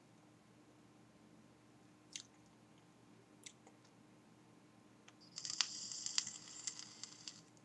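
Electronic cigarette's 510 cartridge atomizer sizzling and crackling for about two seconds near the end as it is drawn on at 5 volts, after two faint clicks.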